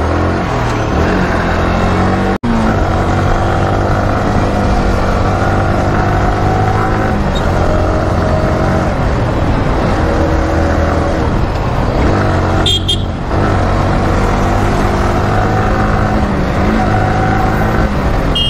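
Yamaha R15's single-cylinder engine running as the bike rides through town traffic, picking up speed through the gears. There is a brief break in the sound about two seconds in.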